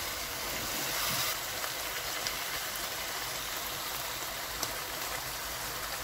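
A pan of chicken and cauliflower curry sizzling steadily: an even hiss with a few faint ticks.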